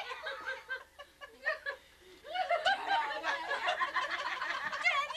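People laughing, quieter for a moment about a second in and building again from about two and a half seconds in.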